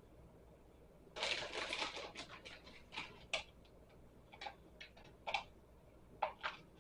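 Light handling noises of kitchen work: a rustle lasting under a second about a second in, then a scattered run of small clicks and taps.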